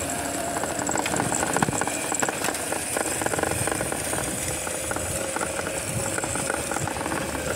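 Electric mini motorbike riding over bumpy grass: its frame rattles and knocks over the ground, under wind noise on the microphone and a steady high electric motor whine.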